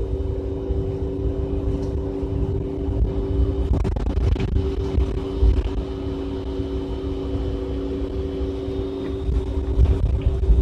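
City bus running, heard from inside the cabin: a steady deep rumble with a two-note hum held on top of it.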